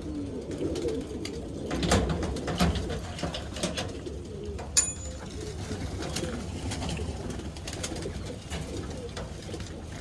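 Domestic pigeons cooing in a loft, with scattered clicks and knocks as the wire-mesh loft door is opened and someone moves inside; one sharp click about five seconds in.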